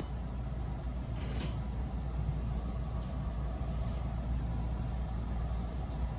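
Steady low rumble of a running vehicle, with a brief hiss about a second in and fainter ones later.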